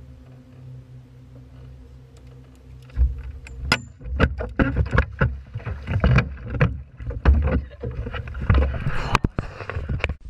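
A steady low hum on the boat, then from about three seconds in a rapid run of knocks and thumps against the boat with splashing water, as someone in the water grabs the rail and scrambles at the side.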